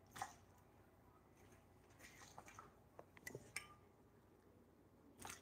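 Near silence with a few faint taps and clicks of kitchen handling: one just after the start, a small cluster in the middle, and one near the end.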